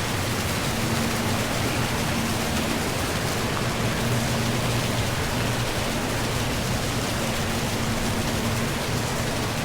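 Steady rush of fast-flowing river water and waterfall spray, an even, unbroken noise, with a faint low steady hum underneath.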